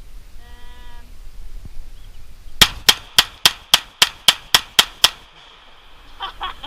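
.22 caliber semi-automatic pistol fired rapidly, ten sharp shots at about four a second, in one quick string.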